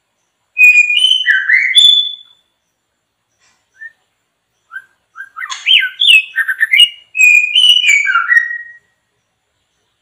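White-rumped shama (murai batu) song: two loud runs of rich, varied whistled phrases, the first about half a second in and the second from about five and a half seconds to nearly nine.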